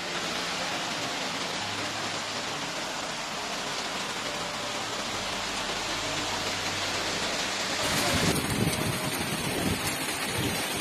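Heavy rain pouring down steadily. About eight seconds in, the sound changes to a rougher, more uneven rush.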